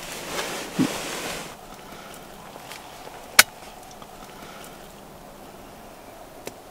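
Rustling and shuffling of people moving in a hunting blind for about a second and a half, then low quiet background with one sharp click a little after three seconds in.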